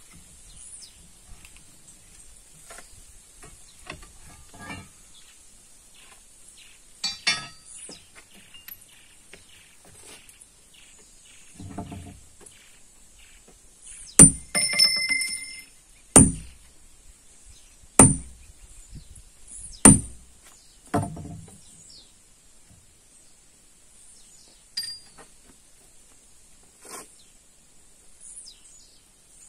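Hammer blows on steel in stone splitting: four loud ringing strikes about two seconds apart in the middle, with lighter knocks before and after.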